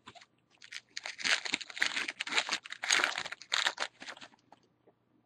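Foil wrapper of a baseball card pack crinkling and tearing as the pack is opened, a dense rustling for about three and a half seconds that fades out near the end.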